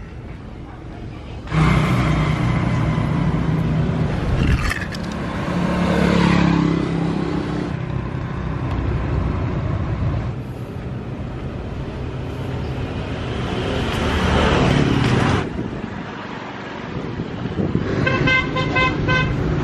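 Road traffic: vehicles passing close by, the noise starting suddenly and swelling and fading several times. Near the end a horn beeps in a quick string of short toots.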